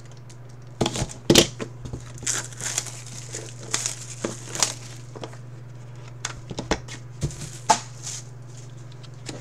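Clear plastic shrink-wrap being slit and peeled off a cardboard trading-card box, crinkling and crackling in irregular bursts, with a few sharp handling clicks as the box is opened.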